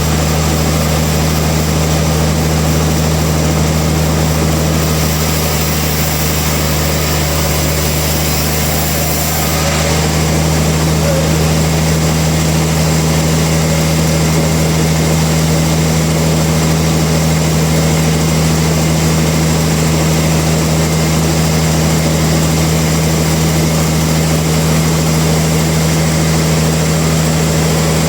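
Sawmill machinery running with a steady, loud, low mechanical hum.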